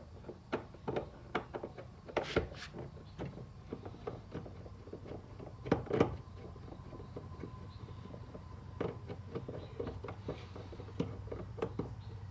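Irregular clicks, taps and knocks of hand tools and screws on a car door's metal and plastic parts, the loudest pair about six seconds in, over a faint low hum.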